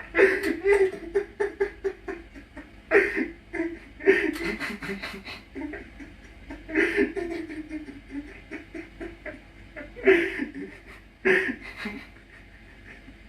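A person laughing in repeated fits of quick, breathy bursts, on and off.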